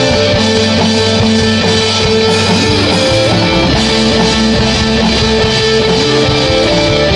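Instrumental rock music: electric guitars playing sustained notes over bass and drum kit, with no vocals.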